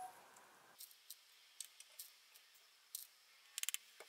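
Faint scattered clicks of a metal spoon and sodium hydroxide pellets against a plastic jar and paper cup, with a quick run of about five clicks near the end.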